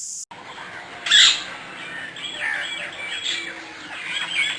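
Wild birds calling in forest: a string of quick up-and-down chirps, with one loud squawking call about a second in.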